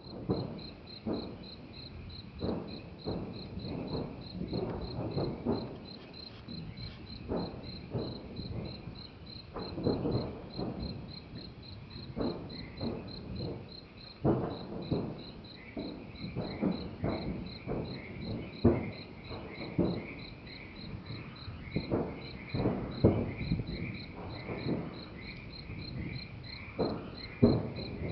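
Repeated deep booms from hail cannons firing, coming irregularly about once a second or more. Under them, crickets chirp steadily at about three chirps a second.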